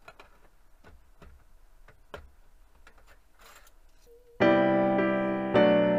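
Faint light clicks and taps of an aluminium mess tin being handled, then piano music starts loudly about four seconds in.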